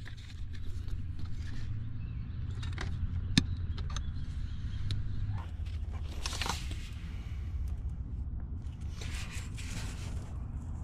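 Hand work on truck wiring: one sharp click about a third of the way in, then scraping and rustling twice, over a steady low rumble.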